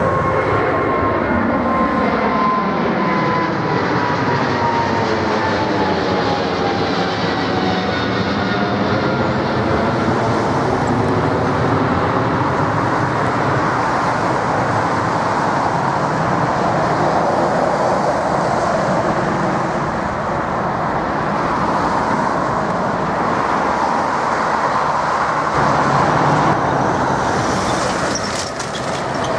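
Twin-engine jet airliner climbing out overhead just after takeoff, its engines loud throughout. An engine whine falls steadily in pitch over the first several seconds as the jet passes over, leaving a steady jet rumble as it climbs away.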